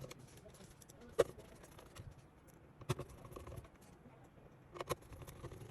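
Sharp clicks and light knocks of a router's plastic casing cover being handled and fitted: one loud click about a second in, another near three seconds and a quick pair near five seconds.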